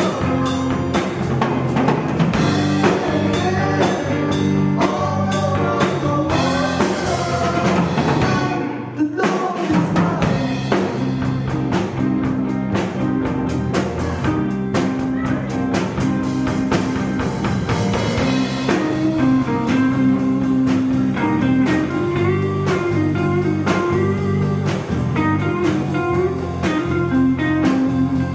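Live band playing a blues-rock song with guitar and drum kit, with a short break in the music about nine seconds in.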